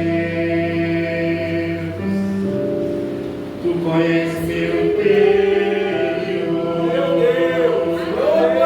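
Gospel song: held keyboard chords, with singing voices coming in about four seconds in.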